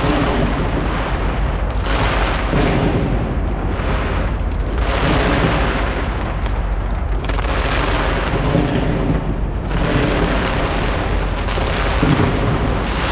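Large fireworks display: a dense, unbroken barrage of booming bursts and crackle, swelling and easing in waves every two to three seconds.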